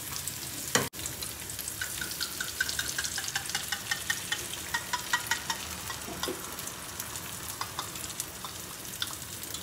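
Food frying in hot oil in a pan, a steady sizzle with many small crackles and pops. There is a single sharp knock about a second in.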